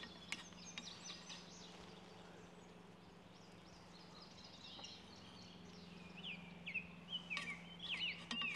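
Small birds chirping and singing, sparse at first and more often from about six seconds in, over a low steady hum. A few faint knocks come from the cleaning rod working in the shotgun barrel.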